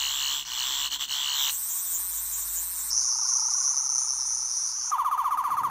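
The Wand Company 12th Doctor sonic screwdriver replica in FX mode, playing its electronic sonic sound effects as it is moved: a high, pulsing electronic warble that changes pitch and texture several times, switching to a lower, faster-pulsing warble near the end.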